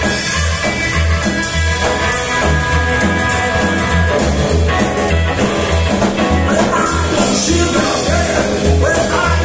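Live rock and roll band playing: upright double bass on a steady beat, hollow-body electric guitar and drum kit, with a male voice singing from about halfway through.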